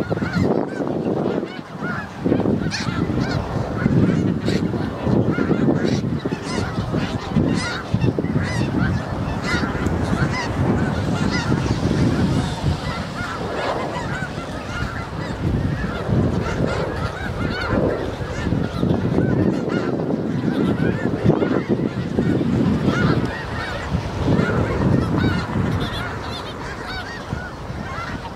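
A large flock of snow geese calling, many short honks overlapping into a continuous clamour without a pause.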